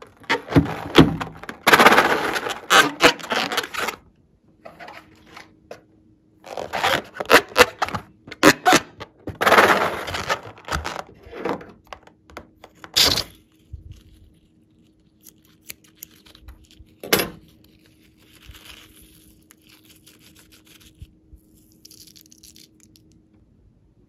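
Rubber balloon squeezed and handled in the hands, with long stretches of crackling and scraping, then a couple of sharp scissor snips as it is cut open over a bowl of slime, followed by fainter squishing.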